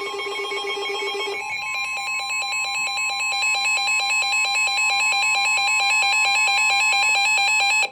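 Emergency Alert System attention signal: a loud, steady two-tone alarm that cuts off abruptly at the end, just before a flood-warning voice message. For about the first second and a half, a lower pulsing tone is mixed in with it.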